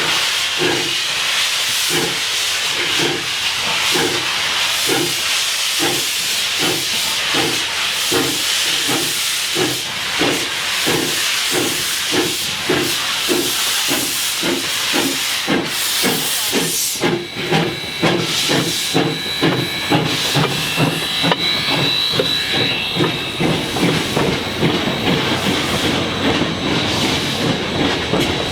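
Steam locomotive, a 4-6-0 ten-wheeler, starting its train and picking up speed: heavy hiss of escaping steam over exhaust chuffs that quicken steadily. About halfway through, the hiss drops away, leaving the chuffs and a thin steady high tone.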